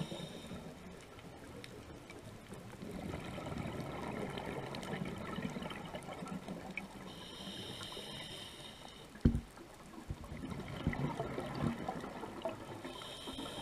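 A scuba diver breathing underwater through a regulator. A hissing inhale comes about seven seconds in and another near the end, with gurgling exhaled bubbles in between. A single sharp knock comes about nine seconds in.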